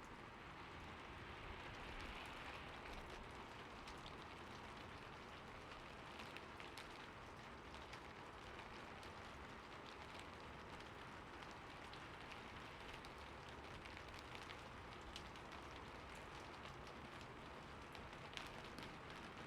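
Soft, steady rain falling, with many small drops ticking on hard surfaces.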